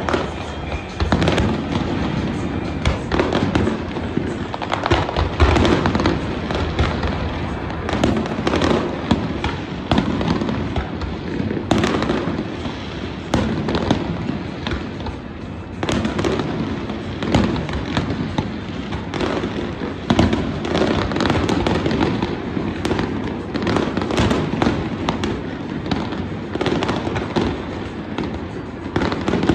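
Fireworks display: a continuous barrage of bangs and crackles, with bursts overlapping one another and several sharper booms standing out.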